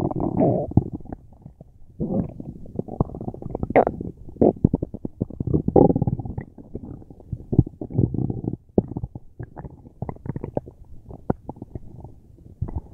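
A person's stomach gurgling and rumbling loudly in bouts of about a second each, with short crackling pops and clicks in between.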